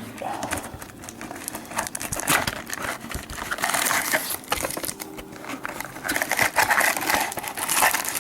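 Plastic wrapping crinkling and rustling, with small clicks and scrapes, as a sealed box of trading-card packs is opened and the packs are handled.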